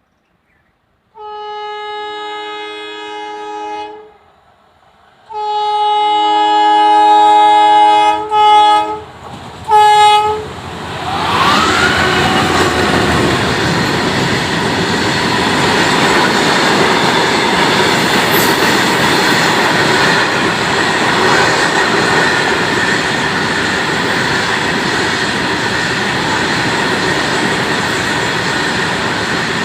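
Indian Railways diesel locomotive sounding its horn: a long blast, a longer second blast, then two short toots. The locomotive and its ballast wagons then pass close by, with the diesel engine running loudly and the wheels clattering over the rail joints.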